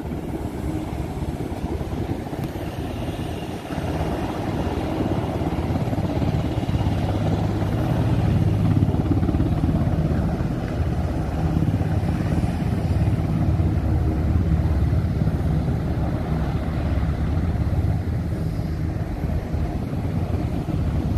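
Sikorsky UH-60M Black Hawk helicopter's rotor and turbine noise, a steady low drone that grows louder from about four seconds in.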